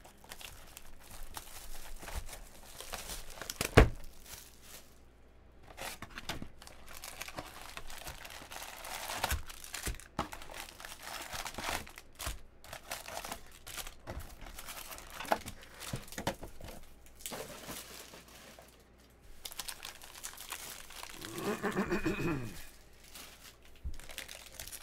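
Plastic shrink wrap crinkling and tearing as it is stripped off a Bowman Draft trading card box, then the cardboard box being opened and foil card packs handled. There is one sharp knock about four seconds in.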